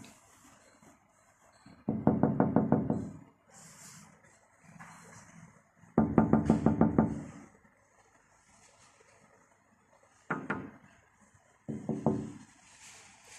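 Quick runs of taps on a window pane, several taps a second: two bouts of about a second each, then two short ones near the end.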